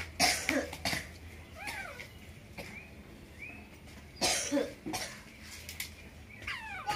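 Coughing in two bouts about four seconds apart, with a few short, high, rising-and-falling squeaky calls in between.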